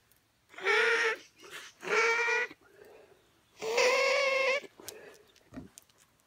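A person's stuffy, sniffly nose whistling as air is pushed through it: three long, squeaky whistles with short quiet gaps between them.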